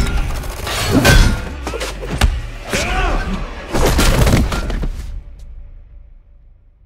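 Dubbed hand-to-hand fight sound effects over music: blows, thuds and swishes, with a heavy body slam onto pavement about four seconds in. The sound then dies away over the last couple of seconds.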